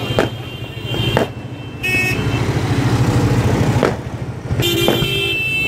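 Firecrackers going off amid road traffic: four sharp bangs, over the steady hum of vehicle engines. High-pitched horn toots sound about two seconds in and again near the end.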